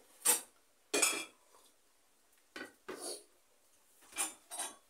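Eating at a table: half a dozen short sounds of sipping from a small bowl and of the bowl and dishes knocking together, each brief, with pauses between.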